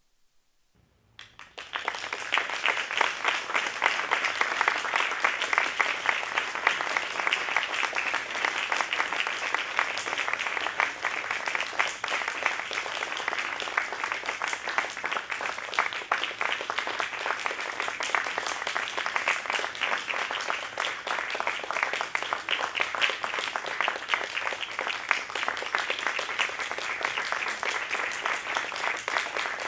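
Audience applauding: it breaks out suddenly about a second in, out of near silence, and keeps up steadily as many hands clapping together.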